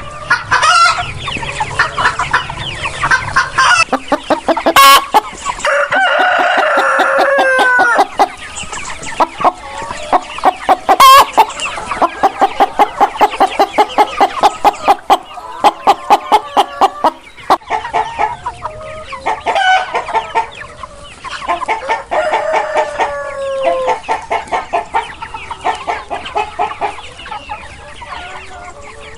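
Chickens clucking in quick repeated runs, with a rooster crowing twice, each crow falling away at the end: once about six seconds in and again near twenty-two seconds. Two sharp clicks stand out, about five and eleven seconds in.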